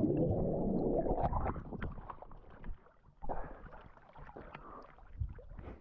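Sea water splashing and sloshing as a person wades and plunges in, loudest in the first second and a half, with another splash about three seconds in.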